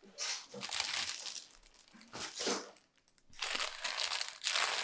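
A clear plastic bag around a shipped plant crinkling as hands handle it, in three stretches; the last, starting about two thirds of the way in, is the longest and loudest.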